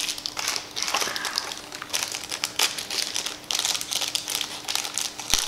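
Thin plastic packaging crinkling and rustling in irregular bursts as small earbud accessories are unwrapped and handled, with a sharp click about five seconds in.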